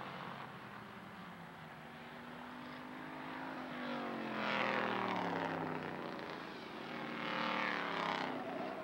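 Hobby stock race cars passing close by at speed. A car goes by about halfway through, its engine pitch falling as it passes, and a pack of cars follows near the end with a second falling sweep.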